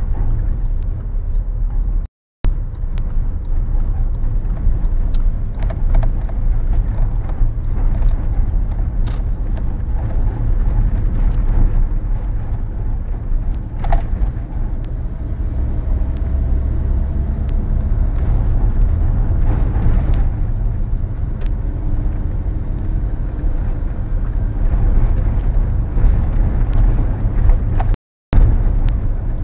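A car driving, heard from inside the cabin: a steady low rumble of engine and road noise with a few faint clicks. The sound cuts out to silence briefly about two seconds in and again near the end.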